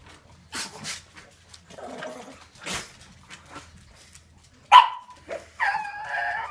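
A pug sneezing and snorting: a series of short, sharp bursts of breath through the nose. The loudest comes a little before the five-second mark, followed by about a second of a pitched, wavering cry.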